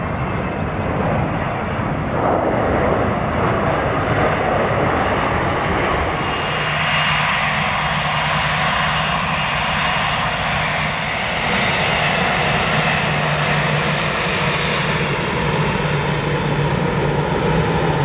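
Boeing 787-8 Dreamliner's Rolls-Royce Trent 1000 turbofans: a steady jet roar as the airliner lands. About six seconds in the sound changes to the closer, brighter run of the engines as the plane taxis past, with a low steady hum under a high hiss.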